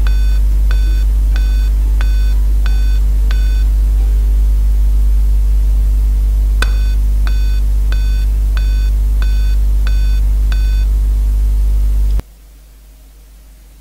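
Dell Inspiron 3521 laptop sounding its power-on beep code: short high beeps at about one and a half a second, in runs of seven, one run ending and a second starting with a click, over a loud steady low hum that cuts off suddenly near the end. On this model the seven-beep code means a faulty or corrupted BIOS chip that needs reprogramming.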